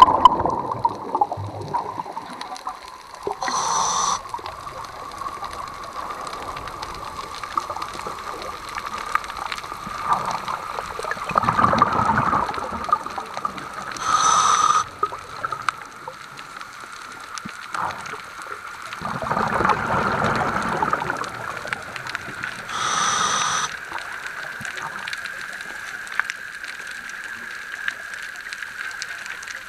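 Underwater recording of water moving around the camera, with a steady faint whine that rises slowly in pitch and several short rushing swooshes every few seconds.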